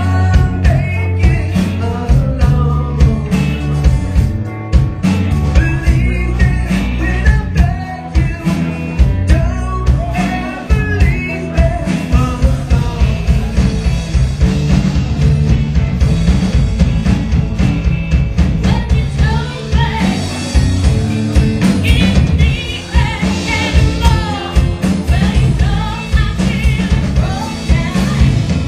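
Live rock band playing with a singer: drums, bass and guitar in a steady beat under the vocal.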